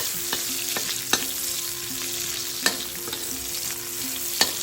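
Sliced ginger frying in hot oil in a wok: a steady sizzle, with a spatula clicking against the wok several times as it is stirred.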